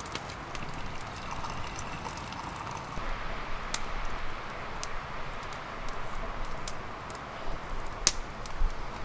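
Wood campfire of split logs, still a bit damp, crackling: a few sharp pops, the loudest about eight seconds in, over a steady hiss.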